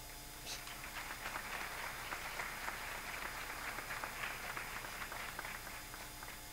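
Audience applauding, a dense patter of many hands clapping that starts about half a second in and dies away near the end.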